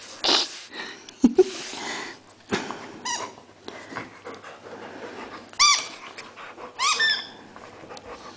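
Rubber squeaky toy squeaked in a dog's jaws: short, rising-and-falling squeaks in separate bouts, one around three seconds in, another past halfway and a quick cluster near the end, with rustling and clicks between them.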